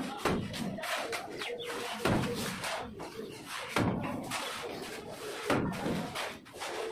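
Wet cement-sand mortar flung from hand scoops onto a brick wall in irregular slaps, with the scoops scraping up more mortar from the floor between throws.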